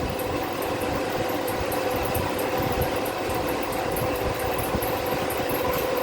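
A machine running steadily with a constant hum and a fast, even ticking on top.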